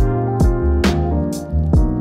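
Background music with a steady drum beat, about two strikes a second, under held instrumental chords.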